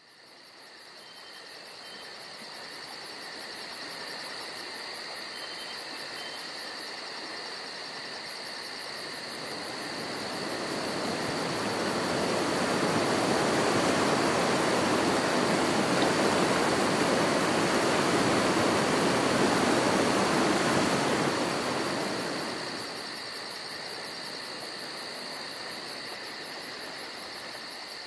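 Outdoor nature ambience: insects trill steadily at a high pitch, and a river rushes beneath them. The water grows louder from about ten seconds in and fades back down a little after twenty seconds.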